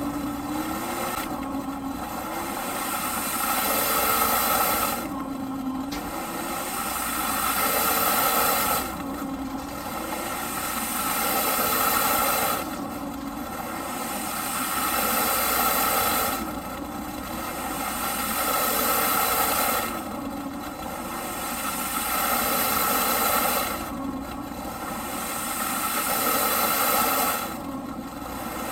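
Eureka PowerSpeed vacuum cleaner running with a surging sound. It swells for about three seconds and then drops abruptly, over and over, roughly every four seconds.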